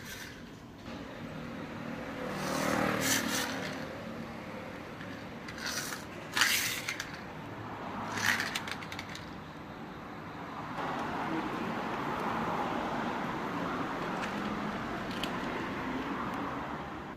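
A person's clothing and shoes scraping and rustling on pavement in several short bursts while crouching and crawling, followed by a steady rushing noise for the last six seconds.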